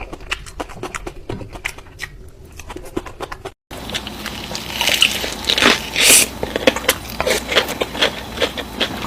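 Close-miked eating: a person biting and chewing crunchy food, a rapid run of crisp crunches and small cracks. The sound cuts out briefly a little over a third of the way in. After that it is louder, with sharper crunches.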